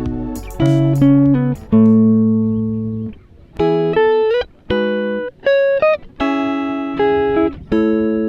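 Background music: an instrumental guitar passage of plucked chords and notes, each left ringing and fading.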